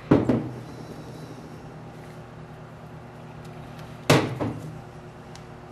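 A lube bottle and engine parts set down on a workbench tray: two sharp knocks about four seconds apart, each followed by a lighter one, over a steady low hum.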